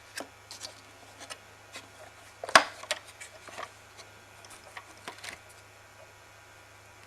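Plastic parts of a bagless upright vacuum cleaner being handled and taken apart: scattered clicks and knocks, with one loud snap about two and a half seconds in.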